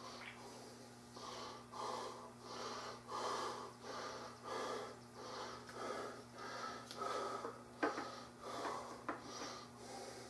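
Heavy, wheezy breathing in quick rhythmic breaths, a little over one a second, over a steady low electrical hum. A single sharp click about three-quarters of the way through.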